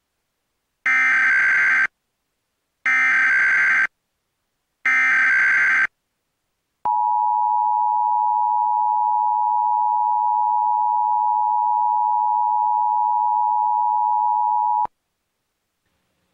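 Emergency Alert System header: three separate one-second bursts of SAME digital data tones, then the two-tone EAS attention signal held steady for about eight seconds before cutting off sharply.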